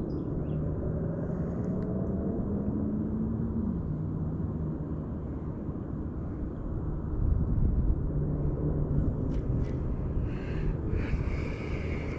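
Steady low engine hum of a passing motor vehicle, its pitch dropping about four seconds in, over a low rumble.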